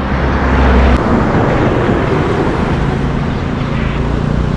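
A motor vehicle's engine and tyre noise passing on the road. It swells to its loudest about a second in, then fades, over a steady low engine hum.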